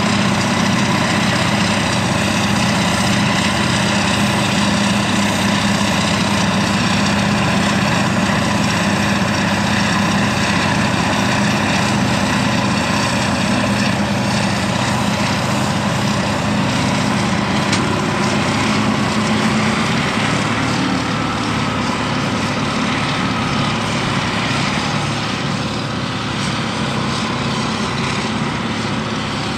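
Caterpillar 637 twin-engine scraper's diesel engines running under load as it loads dirt in the cut: a loud, steady engine drone that grows gradually quieter over the last several seconds.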